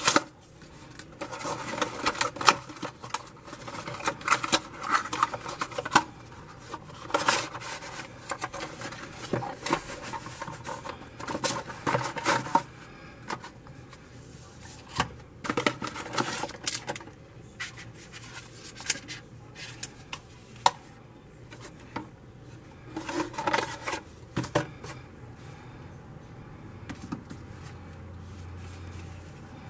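Hands peeling a tape seal off a small cardboard retail box and opening it, with crinkling, scraping and rustling of cardboard and paper and scattered sharp clicks. The handling is busiest in the first dozen seconds, then thins to occasional rustles as paper is lifted out.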